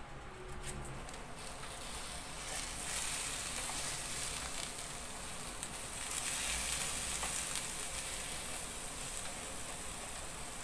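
Zucchini slices sizzling on the hot plates of an open electric contact grill as butter is brushed on. A steady hiss that swells about two seconds in.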